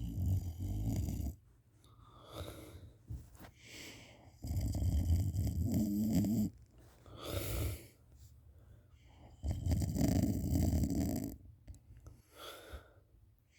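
A person snoring in sleep. Loud snores of about two seconds each come roughly every five seconds, with quieter breaths out between them.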